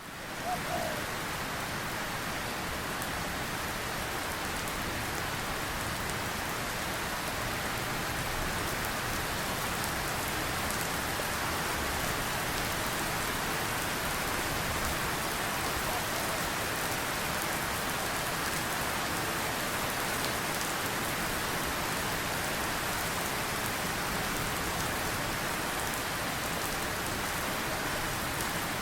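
Steady rain falling, an even hiss with fine patter of drops.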